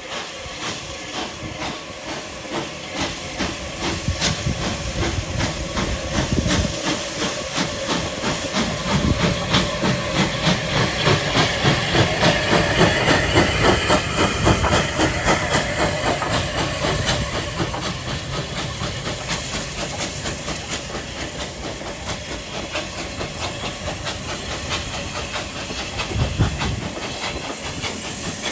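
Steam locomotive working past with regular exhaust beats and steam hiss, growing louder to a peak about halfway through and then fading as it draws away.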